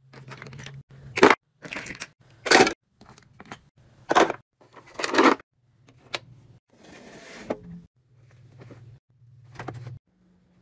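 Handled plastic toys knocking and clattering in a string of short separate bursts, with a single sharp click of a light switch about six seconds in.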